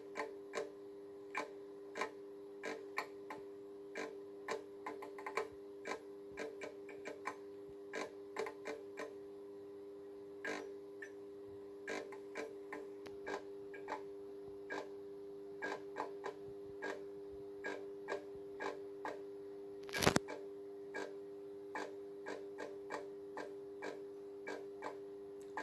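Fluorescent fixture's glow starter clicking irregularly, one to two times a second, over the steady hum of the ballast, with one louder crack about twenty seconds in. An end-of-life Philips TLD 18W T8 tube fails to stay lit, so the starter keeps cycling to restrike it.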